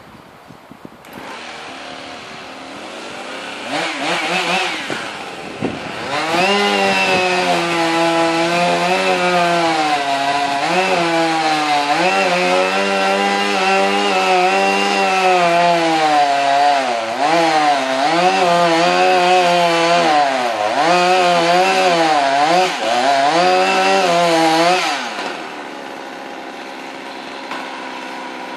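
Chainsaw up in the tree: idling, blipped once, then held at full throttle for about twenty seconds while its pitch dips and recovers again and again as the chain loads up cutting into the pine. It drops back to idle near the end.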